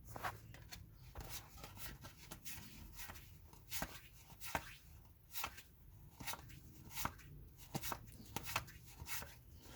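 1991–92 SkyBox basketball trading cards being flipped one at a time through the hands: a series of soft, short swishes and taps, one every half second to a second.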